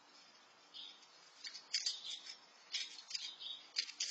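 Squirrel crunching food from a bowl: a run of sharp, irregular crunches and clicks, starting about one and a half seconds in.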